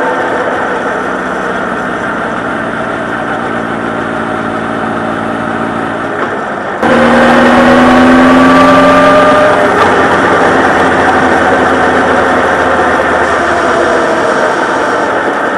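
Honda CB1300 Super Bol d'Or's inline-four engine running steadily. About seven seconds in, the sound turns suddenly louder and the engine note rises for a couple of seconds as it accelerates, then holds.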